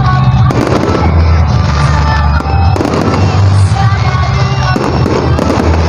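Aerial fireworks bursting and crackling in quick succession, with a few bigger bursts about half a second, nearly three seconds and nearly five seconds in. Loud music plays under them.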